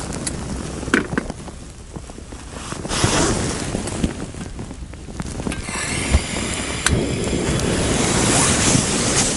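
Portable gas canister stove being turned on and lit under a metal mug of water for tea. A few clicks and knocks in the first half, then from about halfway a steady rushing hiss of the burner.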